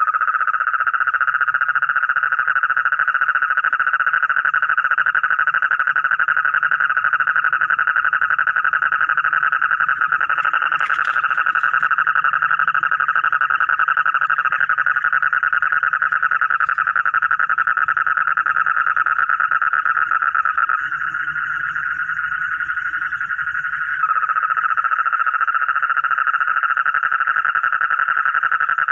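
Frogs giving a continuous, high, rapidly pulsed trill. It dips slightly quieter and thinner about 21 seconds in and comes back full about three seconds later.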